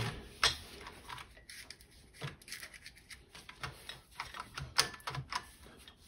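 Seat belt retractor clicking as the webbing is fed back onto its spring-loaded spool: light, irregular clicks and ticks.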